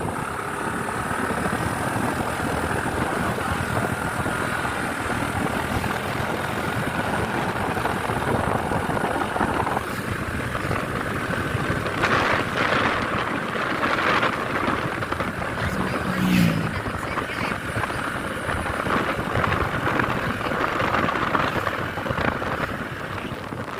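Bus running, a steady mix of engine and road noise, with a few louder rushes of noise about halfway through.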